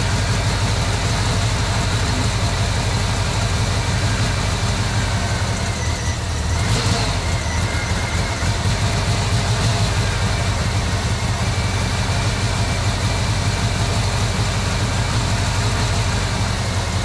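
Volkswagen Vanagon's gasoline flat-four engine running steadily after restarting from a flooded condition, its injectors plugged back in and timing adjusted.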